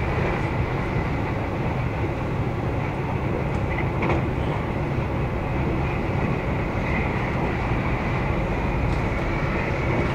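Cabin of a commuter train running at speed: steady rumble of wheels on rail and running noise, with a faint high whine on top. A brief knock about four seconds in.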